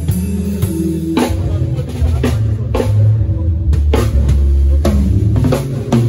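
Drum kit played live at a sound check: kick drum, snare hits and cymbal crashes in a loose groove, with low held bass notes underneath.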